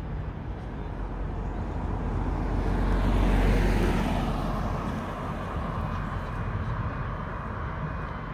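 Road traffic: a vehicle passing close by, swelling to a peak about three and a half seconds in and fading, over a steady low rumble.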